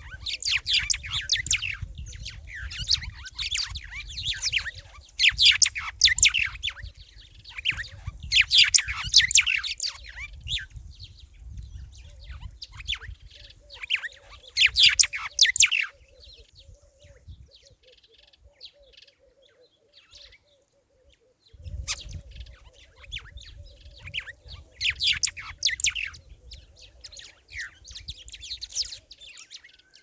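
Small birds chirping and twittering in rapid, dense bursts, with a low rumble underneath. The chirping thins out and goes quiet for about five seconds past the middle, then picks up again.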